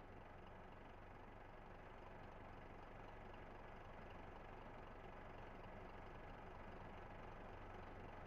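Faint, steady roadside traffic noise with a low engine hum, slowly getting a little louder.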